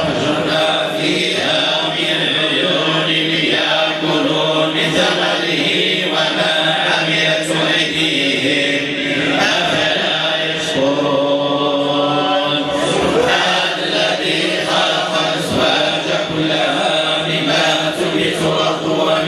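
Men chanting together in Sufi devotional style, a steady unbroken chant with long held notes.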